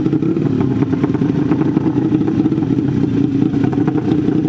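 Two 150 cc 'sleep engine' drag bikes running together at the start line, their engines chattering at a fast, steady pace.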